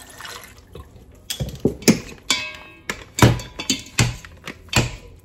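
Milk pouring from a carton into a stainless steel pot of boiled potatoes. From about a second and a half in, the hand mixer's metal beaters, with the motor off, knock and clank against the pot as they crush the potatoes: about ten irregular knocks, one ringing briefly.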